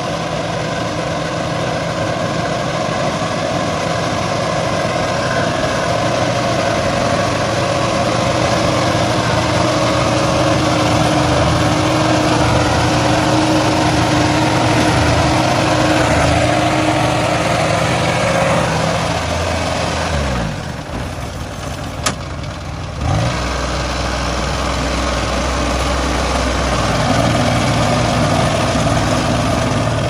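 Engine of a crawler-tracked paddy machine running steadily as it works through a flooded rice field. About two-thirds of the way through, the sound briefly drops and there is one sharp click, then the engine comes back on a lower, steady note.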